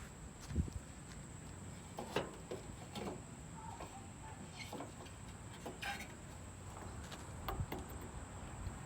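Faint scattered clicks and light knocks, with a dull low thump about half a second in and another a little past seven seconds.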